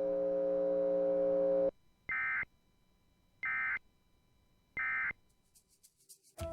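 A steady electronic hum cuts off abruptly, then three short, identical bursts of Emergency Alert System digital data tones follow, about a second and a half apart: the SAME end-of-message code that closes an EAS alert.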